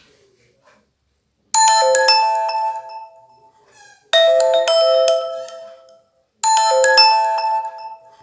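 Microsoft Lumia 535 ringtone: a short bell-like chime phrase played three times, each starting suddenly and fading out over about two seconds.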